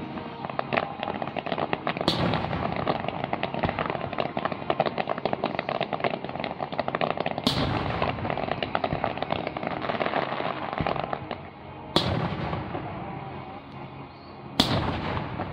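Aerial fireworks display: a dense run of crackling from glittering shells, broken by four loud booms of shells bursting. The crackle thins out over the last few seconds.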